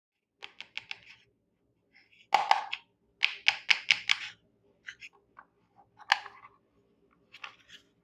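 Small plastic toy pieces being handled, clicking and clattering in short runs: four quick clicks, a louder clatter, then a run of about five sharp clicks and a few single taps.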